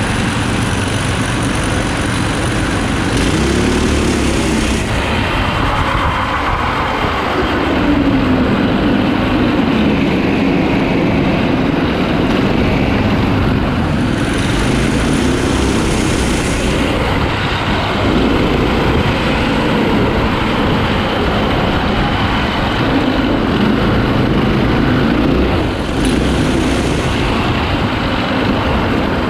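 Four Predator 212 single-cylinder four-stroke engines on an all-wheel-drive go-kart running under load while it is driven, heard from the driver's seat. The engine note rises and falls repeatedly as the throttle is worked.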